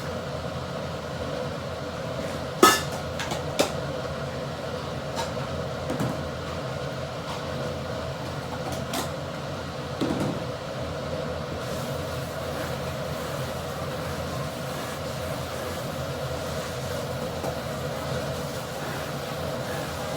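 A steady machine hum runs throughout, with a few sharp clicks and knocks; the loudest click comes about two and a half seconds in.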